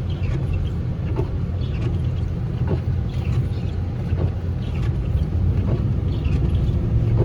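Car driving through deep snow: a steady low rumble of engine and tyres, with scattered short crackles.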